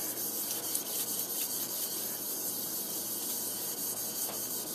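Bookbinding plough blade being sharpened by hand on wet, soapy 500-grit sandpaper laid on glass, rubbed back and forth and in circles: a steady wet grinding of the blade edge on the abrasive.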